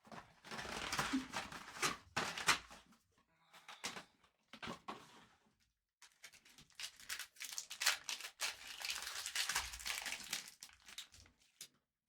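Plastic wrapping crinkling and tearing as trading card packs are opened, in two long bouts with a short one between.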